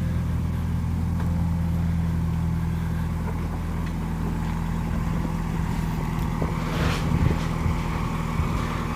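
A vehicle engine running steadily at idle, with a brief rattle about seven seconds in.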